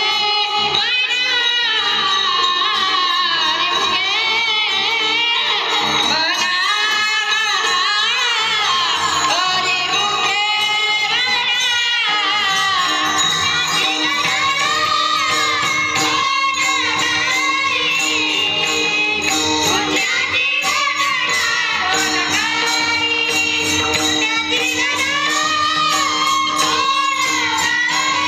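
A voice singing a melodic devotional song, with long ornamented notes, over a steady drone and jingling hand percussion.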